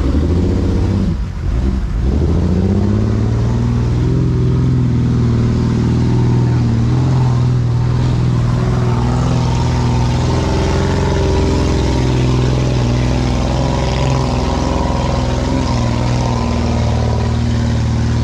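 A four-wheel drive's engine revving hard under load on a steep hill climb. The pitch dips and climbs in the first couple of seconds, then holds at high revs, fairly steady.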